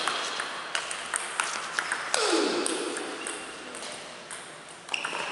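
Celluloid-type table tennis balls clicking off paddles and the table, a string of sharp, irregular ticks from play at more than one table. About two seconds in, a short sound glides down in pitch over the clicks.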